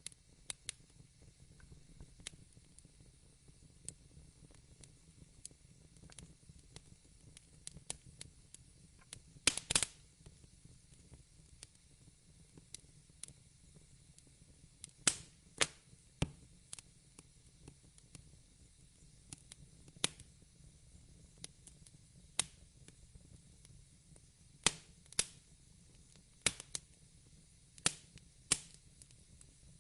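Wood fire in a fireplace crackling, with irregular sharp pops at uneven gaps and a quick cluster of louder ones about ten seconds in, over a faint low rumble.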